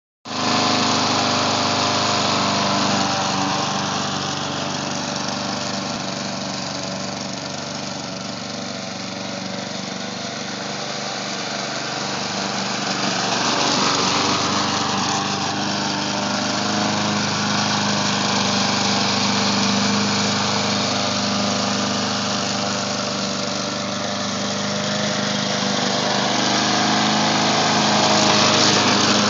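Remote-control lawn mower's small engine running steadily, its sound swelling and fading slowly.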